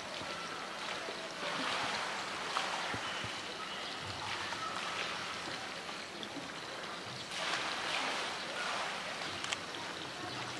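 Steady rushing of running water, swelling twice, with a few faint clicks.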